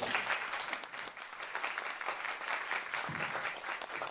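Audience applauding, the clapping breaking out suddenly and continuing as a dense, steady patter.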